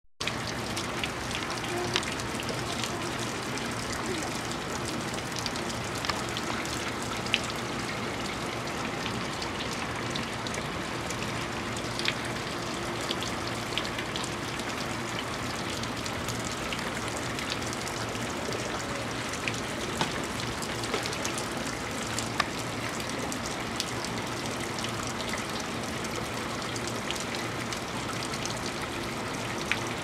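Water from an artificial rock-face waterfall fountain splashing and trickling into its pool: a steady wash of falling water with scattered sharper drips and splashes.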